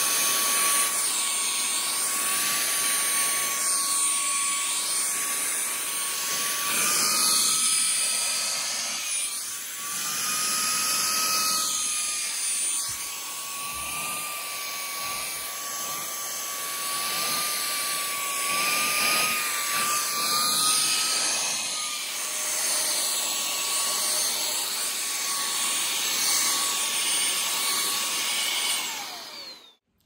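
Lydsto Duo Plus cordless handheld vacuum running with a steady high motor whine and rushing air, its pitch shifting a few times as the suction load changes. Near the end the whine falls away as the motor is switched off and spins down.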